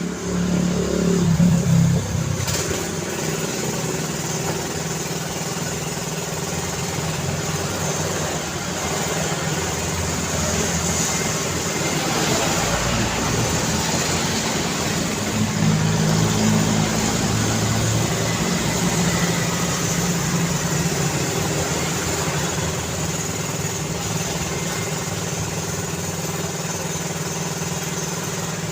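Road traffic: a continuous stream of cars passing, engine hum and tyre noise, with a louder vehicle going by about one to two seconds in.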